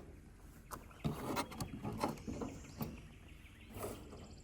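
Irregular small clicks, knocks and rubbing from hands working at a car's wiring harness and its plastic connectors.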